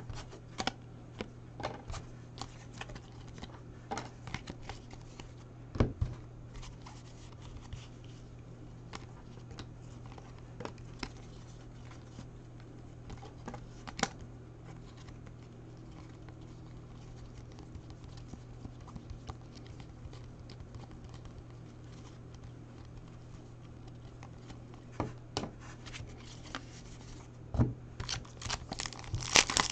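Topps Chrome baseball cards being flipped through and shuffled by hand, with scattered light clicks and taps of card against card over a steady low hum. Near the end, the crinkle of a foil card pack being handled.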